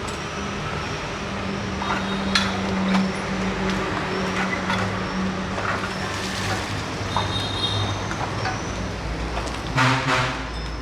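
A motor running steadily with a low hum, with sharp metallic knocks scattered through and a louder clatter near the end.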